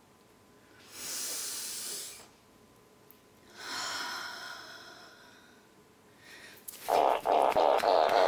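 A woman's loud breathing: a sharp hissing intake of breath about a second in, then a long breath out through the open mouth that fades away. Near the end a much louder rasping, crackling sound starts.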